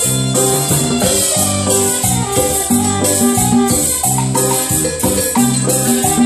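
Live tropical dance band playing an instrumental passage, with congas, saxophones and keyboard over a steady shaker rhythm.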